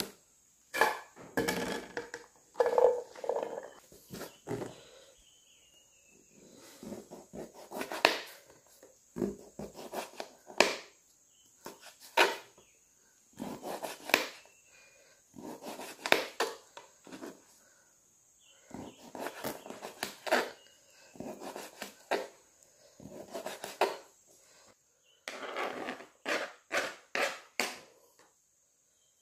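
Kitchen knife striking a plastic cutting board in groups of sharp knocks while slicing pork fat, with a quicker run of knocks near the end.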